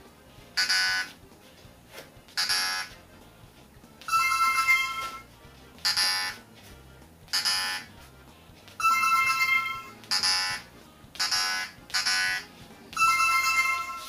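Electronic detector-style sound effects from a hand-held sound device: a series of short hissy bleeps, each about half a second, with three longer beeping tones of about a second each, the last one ending the series.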